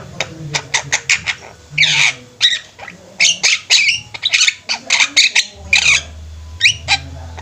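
Javan mynas (jalak kebo) kept together in a group aviary, calling actively in a rapid string of short harsh squawks and chattering notes. A low steady hum joins about five and a half seconds in.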